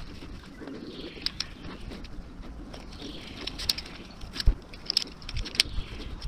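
A pigeon cooing against an outdoor background, with scattered sharp clicks and knocks; the loudest knock comes about four and a half seconds in.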